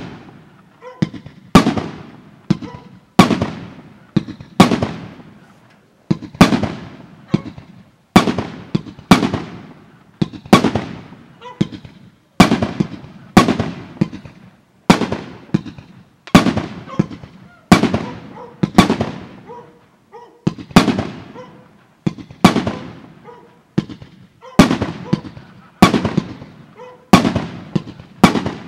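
Aerial fireworks bursting in a steady sequence: a sharp bang about every second or second and a half, each one fading out in a trailing echo.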